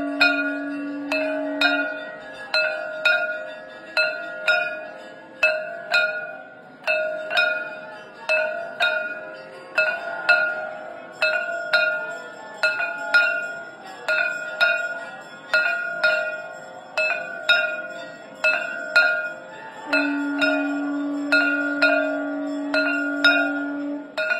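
Temple bell struck repeatedly, about two strokes a second, each stroke ringing on. A conch shell is blown in one long steady note for the first couple of seconds and again for the last few seconds.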